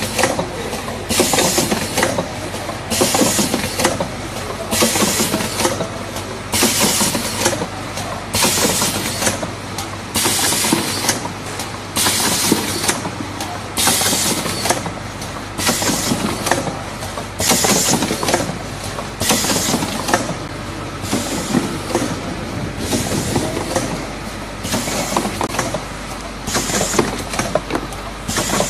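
Model CP-50A automatic turntable cartoning machine running: a steady mechanical clatter with a short hiss of air about once a second as its pneumatic pushers cycle each carton.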